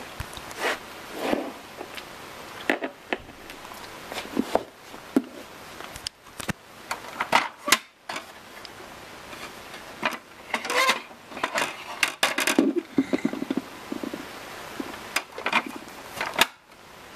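Hard plastic Schleich toys being handled: irregular clicks, knocks and short scrapes as the toy horse trailer is worked at and a toy horse figure is taken out.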